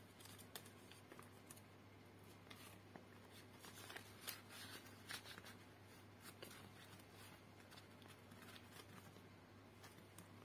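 Faint rustling and crinkling of paper banknotes being slid into a clear plastic binder pouch, with scattered soft crackles and clicks.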